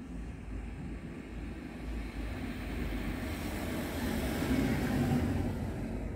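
A car driving past close by: its engine and tyre noise grows steadily louder as it approaches, loudest about five seconds in, then begins to fade.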